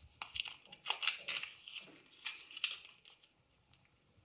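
Crinkling and rustling of a foil cat-food pouch being handled: a run of short, irregular crackles over the first three seconds, then quieter.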